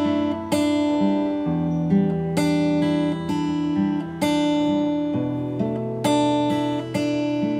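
Acoustic guitar music: chords struck about every half second and left ringing.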